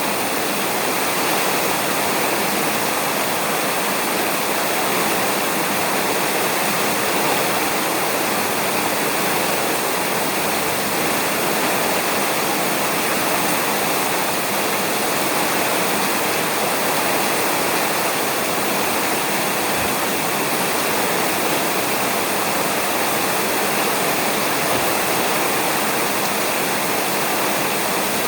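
Steady rain falling on a roof, an even hiss.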